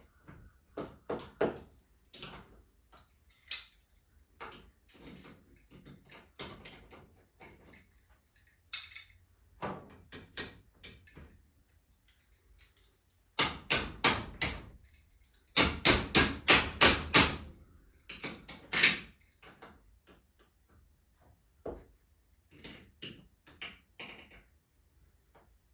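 Metal hardware and hand tools knocking and clicking while a garage door torsion spring is being worked on: scattered single knocks, then about halfway through a run of quick repeated strikes, about six a second, followed by a few more knocks.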